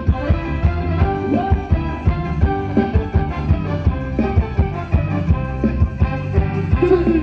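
Live band playing upbeat Thai ramwong dance music with a steady beat.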